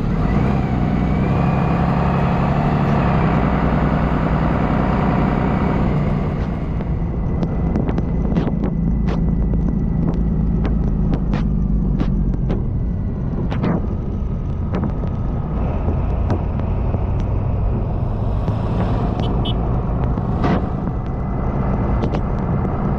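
A motor vehicle running steadily, with a scatter of sharp clicks and knocks partway through.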